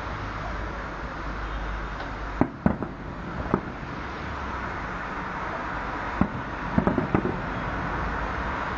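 Fireworks shells bursting in the air: a few sharp bangs between about two and a half and three and a half seconds in, another at about six seconds, then a quick cluster of bangs around seven seconds, over a steady rushing background noise.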